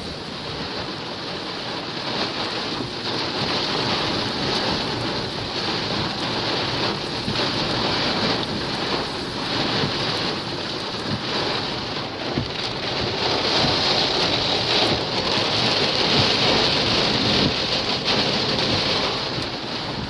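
Strong thunderstorm outflow wind gusting hard and buffeting the microphone, a steady rush that surges and grows louder in the second half.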